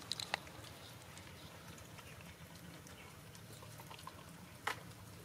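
A dog eating: faint chewing and small clicks of mouth and food, with one sharper click near the end.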